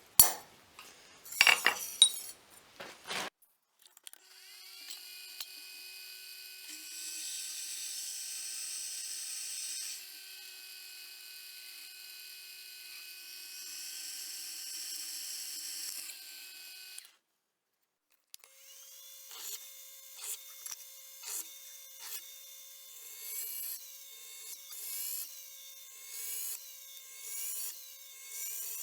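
Shop power tools working a steel knife blade. A few sharp clanks come first. A machine then runs steadily for about thirteen seconds and stops. After that comes a rhythmic series of strokes, about one a second.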